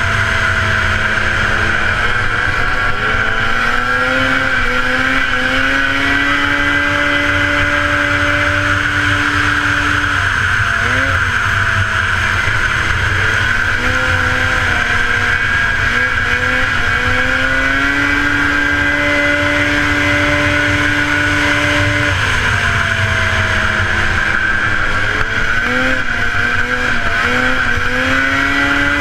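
1977 Polaris TX-L snowmobile's two-stroke engine running hard at high revs, its pitch held steady for long stretches and dipping and climbing back several times, about every eleven seconds.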